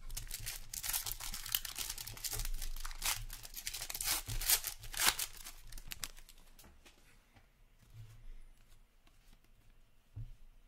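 A foil trading-card pack wrapper being torn open and crinkled in the hands. The crackling is loudest in the first five or six seconds, then gives way to fainter rustling.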